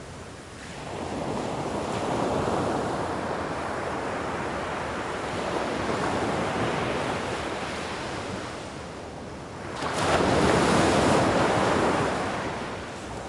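Ocean surf: waves washing in and drawing back in slow swells. One swell builds about a second in, and a louder one breaks about ten seconds in.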